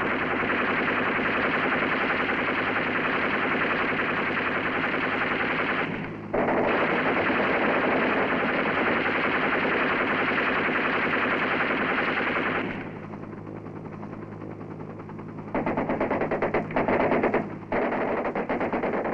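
Long bursts of rapid machine-gun fire from a helicopter door gunner's machine gun, with a short break about six seconds in, a quieter lull from about thirteen to fifteen seconds, then more bursts.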